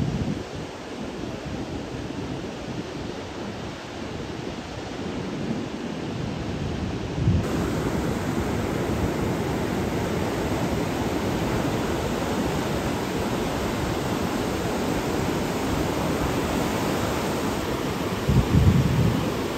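Ocean surf and wind, a steady rushing noise that gets louder about seven seconds in, with wind buffeting the microphone in gusts near the start and again near the end.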